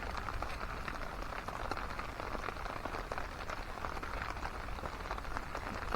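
Steady rain falling, heard as an even hiss made of many small, scattered drop hits.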